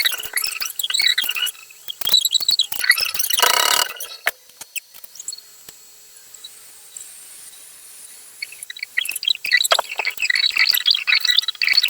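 Wood lathe running while a turning tool scrapes against the spinning wood. The high-pitched scraping comes in bursts, eases off for a few seconds in the middle leaving a faint steady hum, then starts again near the end.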